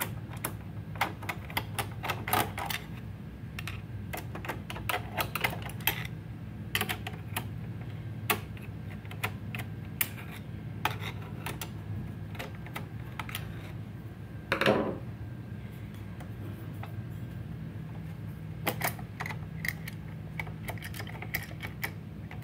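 A screwdriver working the screws of the sheet-metal plate inside an HP EliteOne 800 G1 all-in-one PC: irregular small metallic clicks and taps, with a short scraping sound about two-thirds of the way in. A steady low hum runs underneath.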